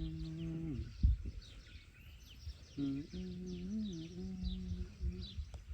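A long, steady low hum that stops a little before a second in and returns about three seconds in, wavering up and down in pitch once, over repeated short chirps of birds. A single thump about a second in.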